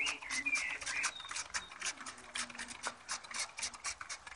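Hand trigger spray bottle squirting whiskey over grilling ribs: rapid short hissing squirts, about four or five a second, that stop near the end.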